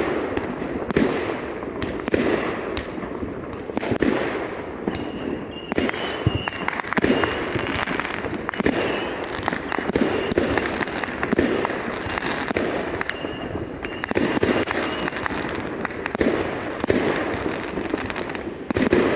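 Fireworks going off: a dense, continuous barrage of bangs and crackles in quick succession, each ringing out briefly.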